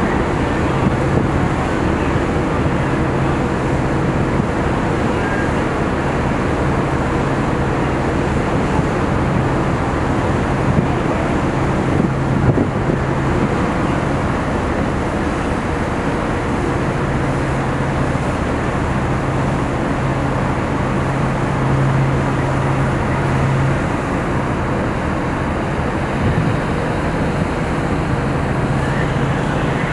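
Steady machinery noise from the self-unloading freighter M/V American Spirit as its conveyor boom swings back into place, with a low hum that cuts out and comes back a few times.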